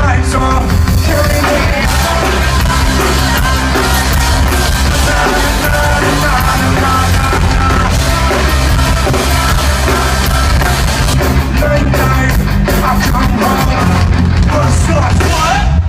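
Loud live hip hop and rock music from a concert PA, with heavy bass and a shouted, rapped vocal, recorded from the crowd.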